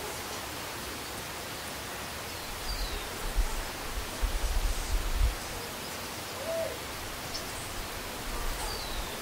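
Outdoor tree-canopy ambience: a steady hiss with bouts of low rumbling on the microphone around the middle, a few faint high chirps, and one short hooting call a little after six seconds in.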